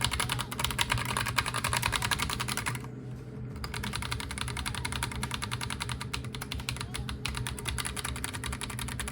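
Akko 5075B mechanical keyboard being typed on quickly: a dense, continuous stream of key clicks with a short pause about three seconds in.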